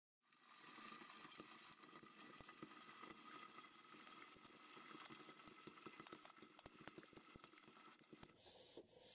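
Popcorn popping in hot oil in a pan under a glass lid: faint sizzling with many quick sharp pops. A few louder hissing bursts come near the end.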